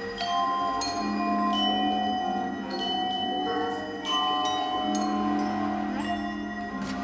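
Mallet percussion: spaced single notes struck on metal-barred instruments of the vibraphone kind, each note ringing on for a second or more, over a steady low tone that changes pitch a few times.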